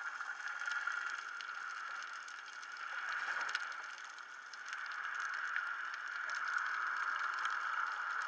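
Underwater ambience recorded through a camera's waterproof housing: a steady, muffled hiss with many faint scattered clicks and crackles.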